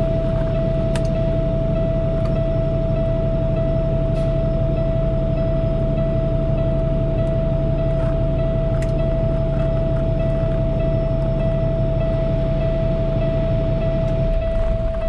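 Diesel truck engine idling steadily on freshly changed oil, with a steady high tone sounding over it.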